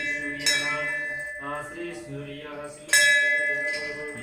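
A temple bell struck twice, about half a second in and again, loudest, about three seconds in, each strike ringing on and slowly fading, over a man chanting mantras.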